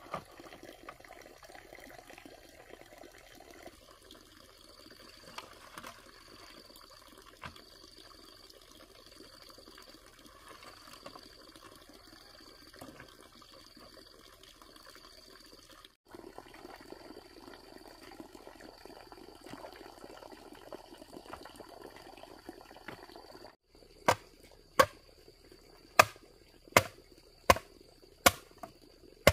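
Water trickling and splashing, with a high insect chirp pulsing steadily. Near the end comes a run of about seven sharp chopping strikes, a little under a second apart.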